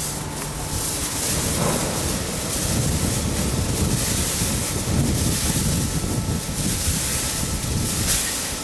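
Wind buffeting the microphone: a steady rumble with a hiss over it.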